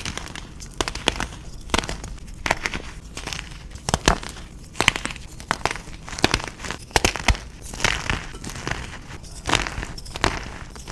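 Reformed gym chalk being crushed and crumbled, giving irregular sharp crunches and crackles with a few louder snaps.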